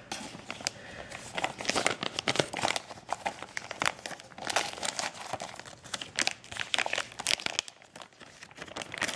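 Clear polyethylene (PE-LD) plastic bag crinkling irregularly as it is handled and worked off a metal network switch, dropping away briefly about eight seconds in.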